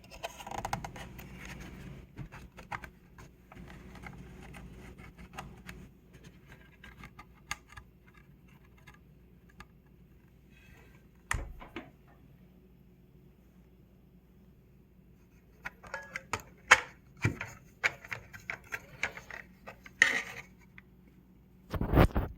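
Clicks, taps and clatter of a solar charge controller's case and parts being handled while it is taken apart. Scattered through, with more and louder knocks in the second half.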